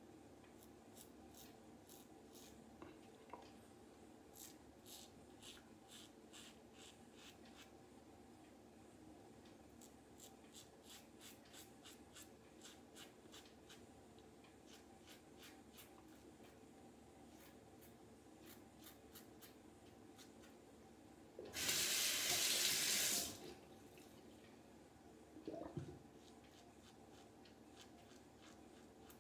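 Rockwell 6S safety razor with a Polsilver SI blade scraping through lathered stubble against the grain in many quiet, short strokes. About 21 seconds in, a water tap runs for about two seconds, the loudest sound.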